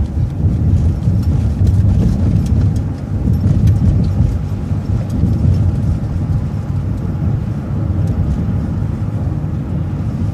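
City bus rumbling low and steady, heard from inside the cabin, with light rattles and clicks over it.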